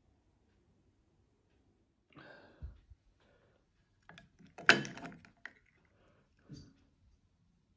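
Ice cubes knocking and clinking against a glass bowl of iced water as a hand moves among them, a quick cluster of knocks with the loudest, ringing clink a little past halfway and one more knock near the end. A soft rustle ending in a low thump comes a little before.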